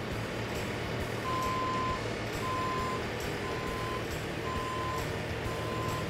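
Bobcat skid steer loader's diesel engine running steadily as it reverses, its backup alarm beeping about once a second from about a second in.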